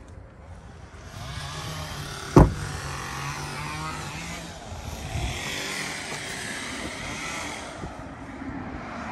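A pickup's cab door shut firmly once, a single loud thud about two and a half seconds in, over steady outdoor street noise with passing traffic.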